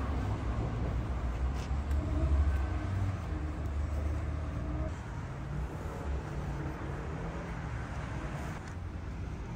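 A low engine rumble, louder over the first few seconds and then settling to a steadier level.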